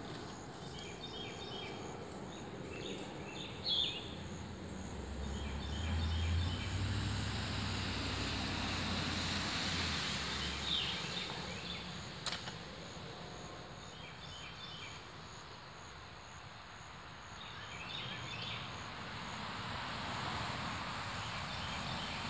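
Outdoor ambience of birds singing short chirping phrases every few seconds, a few with sharp rising notes, over a steady background hiss. A low, distant engine rumble comes and goes over several seconds in the middle.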